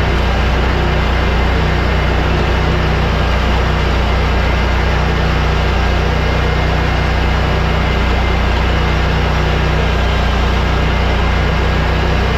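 Exmark Staris 48-inch stand-on mower's engine running steadily at working speed while the mower pushes a leaf plow, a loud constant hum.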